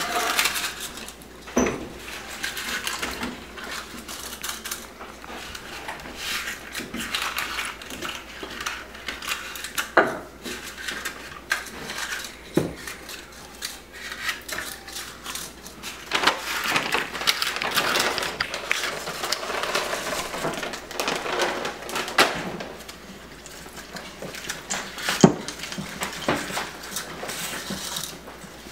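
Paper muffin liners rustling and crinkling as they are pulled apart and pressed into a metal muffin tin, with a few sharp knocks against metal now and then.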